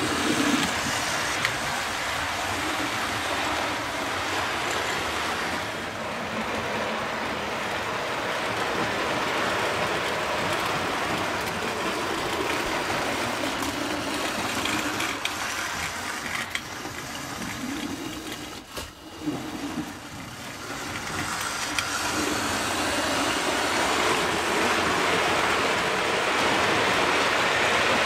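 Hornby Silver Seal model steam locomotive running on OO-gauge track with its tender-drive motor, hauling a rake of coaches. It makes a steady whirring rumble of motor and wheels on the rails. The sound drops briefly about two-thirds of the way through and grows louder near the end as the coaches pass close by.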